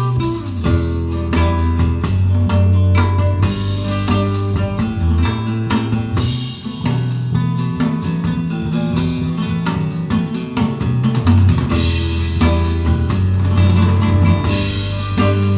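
Recorded music with guitar, a strong bass line and drum kit, played back through Dali Ikon 5 mk2 loudspeakers.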